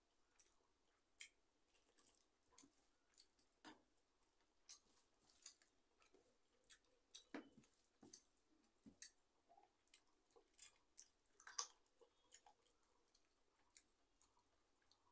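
Faint eating sounds: fingers mixing and scooping rice on a steel plate, with chewing, as scattered small clicks and squishes at an irregular pace.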